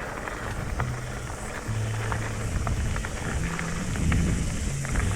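Wind buffeting the microphone and a mountain bike rolling down a dirt trail, its tyres and frame giving a rumble with many small ticks and rattles, over background music with a low note that changes every second or so. The noise grows louder about four seconds in.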